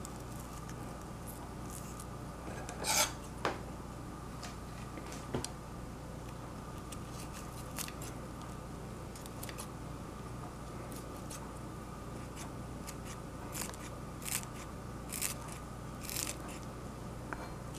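Kitchen scissors snipping green stalks into small pieces. The snips are short, sharp and irregular: the loudest comes about three seconds in, and there is a quicker run of them near the end, over a steady low hum.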